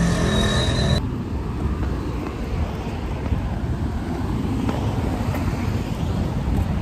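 Outdoor city street noise: a steady low rumble of road traffic, with the sound changing abruptly about a second in.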